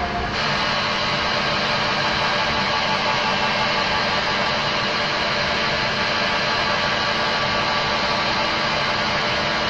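CNC milling machine spindle running steadily with a 40 mm face mill during a laser tool-length measurement, a continuous hissing whir with an underlying hum. It steps up slightly about a third of a second in.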